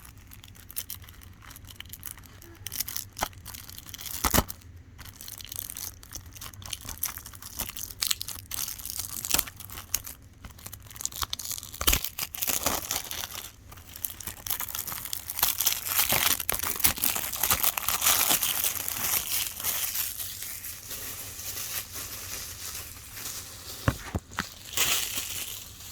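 Plastic shrink wrap being torn and crinkled off a Blu-ray case, an irregular crackling with scattered sharp clicks from the case. The crinkling is loudest a little past the middle.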